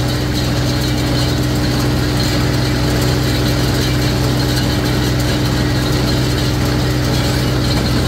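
Tractor engine running steadily while driving a New Holland small square baler with a bale thrower through the PTO shaft; the engine and the baler's machinery run together as one even mechanical drone.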